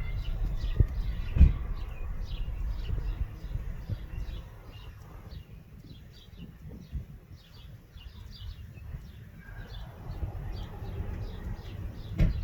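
Small birds chirping: short, high chirps repeated about two or three times a second. A low rumble runs under the first few seconds and returns near the end, with a sharp knock about a second and a half in.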